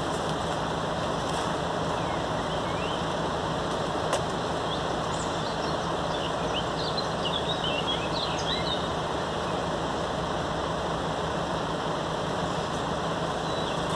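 Steady street noise with no rhythm, with small birds chirping for several seconds in the middle.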